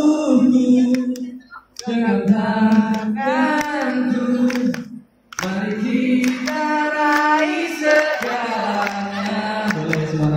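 Singing voices without the band: the instruments drop out at the start and the voices carry on alone, phrase by phrase, with a short break about five seconds in.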